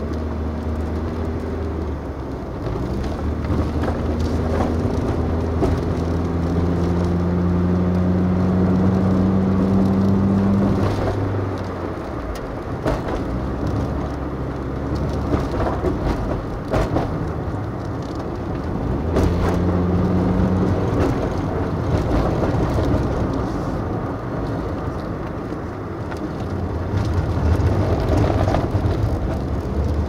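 Road vehicle's engine and tyre noise while climbing a mountain road, with the engine under load. The engine hum rises slowly in pitch for several seconds, drops away about eleven seconds in, and comes back briefly about nineteen seconds in.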